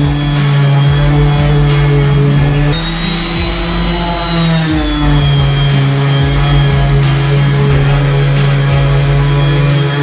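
Background music: sustained low notes that shift in pitch about three and five seconds in, over a faint regular beat.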